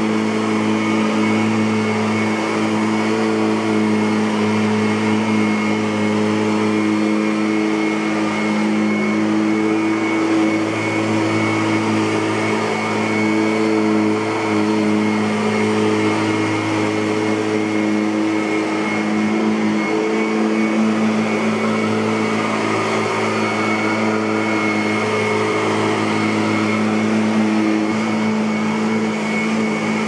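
Kirby Avalir 2 (G10D) upright vacuum cleaner running on carpet: a steady motor hum with a high whine over a rush of air. Its pitch wavers slightly now and then as it moves.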